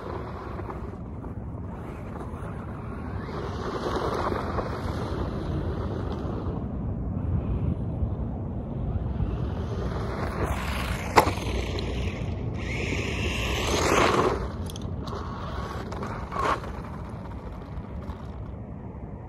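RC monster truck running over dirt and gravel, swelling louder as it comes close, with the loudest pass about fourteen seconds in. A sharp knock comes about eleven seconds in, and low wind rumble on the microphone runs underneath.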